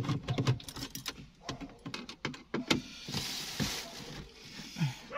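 Screwdriver and hands working the screws and metal-and-plastic parts of a car dashboard stereo mount: a run of small clicks, taps and rattles, with a short hiss of noise a little past the middle.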